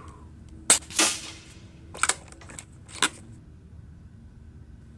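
A moderated .177 PCP air rifle (Airgun Technology Uragan Compact) fires once: a sharp crack, then about a third of a second later a second, longer report that fades out. Two lighter clicks follow about a second apart as the rifle is recocked, and the next shot goes off just at the end.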